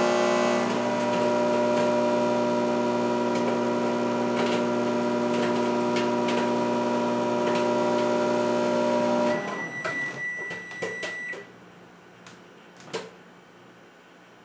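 Old microwave oven running with a loud, steady hum, with scattered sharp pops over it. The hum cuts off suddenly about nine seconds in, followed by a short high tone and a few clicks.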